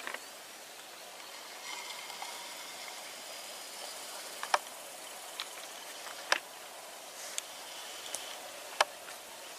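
Outdoor rural ambience: a steady hiss with faint high insect-like tones and a few sharp, scattered clicks.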